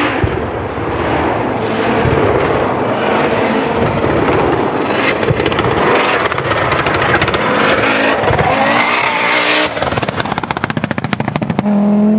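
Audi Quattro A2 Group A rally car's turbocharged five-cylinder engine revving hard, its pitch climbing and dropping again and again as it works through the gears. For the last couple of seconds the note breaks into a rapid, stuttering crackle of pops.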